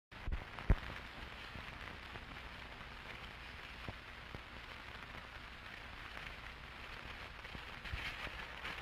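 Surface noise of an old 16mm film's optical soundtrack: a steady crackling hiss over a low hum, with a few sharp pops, the loudest under a second in.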